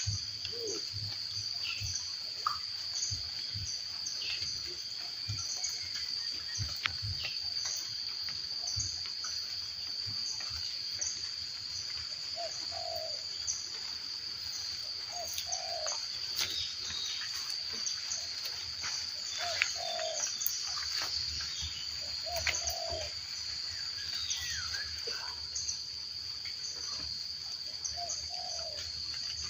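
Forest ambience: birds calling, including a short low cooing call repeated about every three seconds, over a steady high-pitched insect drone.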